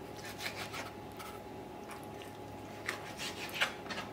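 Small kitchen knife cutting and sawing the skin off a raw chicken thigh, in short scratchy strokes against a plastic cutting board, with a couple of sharper scrapes near the end.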